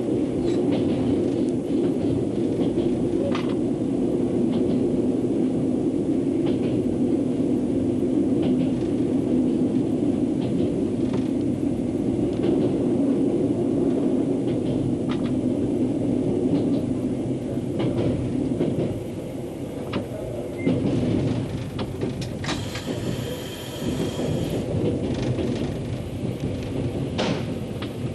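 Train running along the track, heard from inside the driver's cab: a steady low rumble with scattered short clicks. Late on, a brief hiss with a high ringing tone rises over the rumble.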